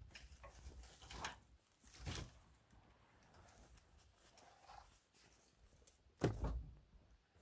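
Birch logs and branches being handled and loaded onto a log sled: scattered knocks and rustles, with a heavier thud about six seconds in.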